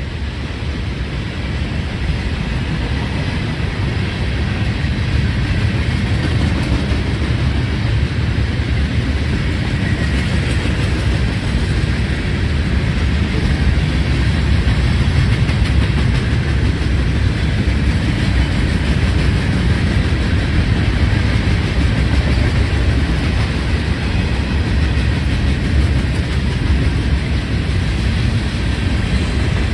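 CSX Herzog maintenance-of-way train rolling past, its diesel locomotive and cars making a steady low rumble that grows louder over roughly the first fifteen seconds, then holds.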